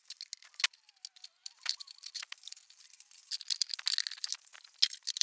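Black plastic tubing and fittings being handled and pushed together at plastic buckets: scattered sharp clicks, crackles and rustling.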